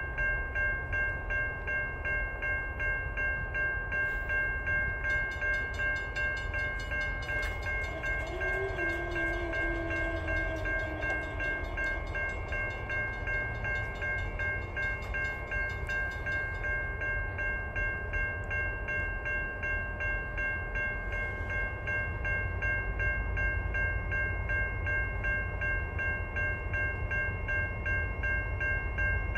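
Railroad grade-crossing warning bell ringing in a steady, even repeated pulse from the moment it switches on: the crossing has activated for an approaching train.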